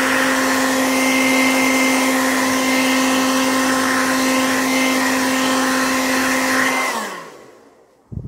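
Hair dryer running steadily, a whooshing blow with a strong motor hum, drying cleaning fluid off a circuit board. Near the end it is switched off and the hum falls in pitch as the motor winds down and fades.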